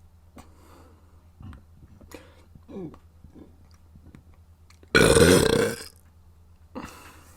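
A person burping loudly once, a single burp of about a second that comes about five seconds in, with a few faint short sounds before it.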